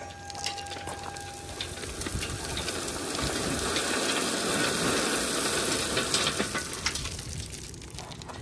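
Crushed rock sliding and spilling out of a tipped dump trailer bed through the open tailgate: a dense rattling hiss that swells through the middle and tapers off near the end.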